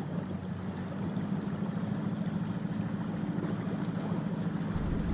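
A boat motor runs with a steady hum as the boat moves over choppy water, and a deeper rumble comes in near the end.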